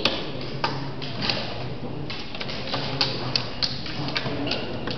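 Irregular sharp clicks of draughts pieces being set down on the boards and game-clock buttons being pressed at several tables, over a low background din.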